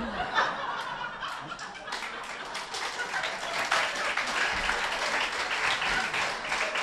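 Audience applauding. The clapping grows about two seconds in and then keeps going steadily.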